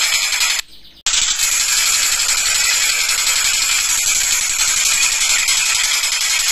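Tengkek buto kingfisher calls: a loud, continuous, rapid rattling chatter. It cuts out briefly about half a second in, then resumes.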